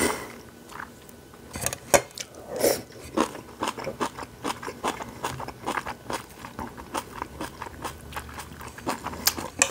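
A person chewing a mouthful of instant jjajangmyeon noodles, close to a clip-on microphone: a steady run of short mouth clicks, several a second, a little louder in the first few seconds.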